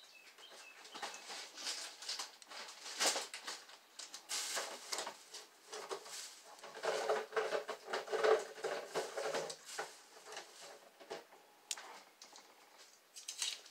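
Quiet, irregular rustling and crinkling with light clicks and knocks: packaging being handled while chicken bouillon cubes are fetched and unwrapped.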